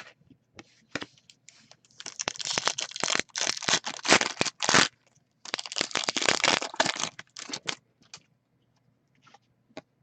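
Foil trading-card pack wrapper being torn open and crinkled, in two bursts of a few seconds each, with a few small clicks and taps before and after.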